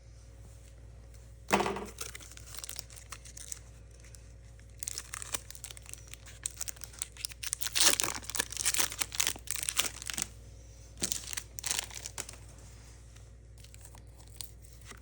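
Foil wrapper of a Pokémon booster pack crinkling and tearing as it is opened, loudest about eight to ten seconds in. A single sharp knock about a second and a half in.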